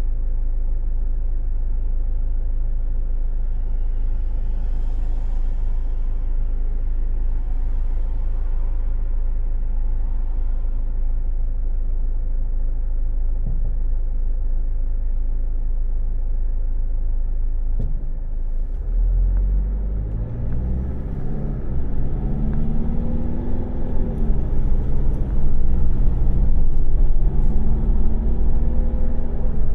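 Car engine idling with a steady low rumble. A click comes about two-thirds in, then the car pulls away, the engine note rising, dropping and rising again as it accelerates through the gears.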